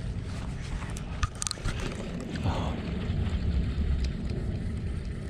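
Water sloshing along the hull of a kayak moving across calm water, with wind rumbling on the microphone. A few brief ticks come about a second and a half in.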